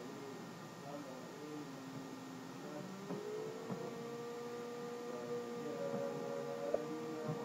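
Steady electrical hum on a computer recording, with a sustained tone that settles in about three seconds in, and a few faint clicks near the end.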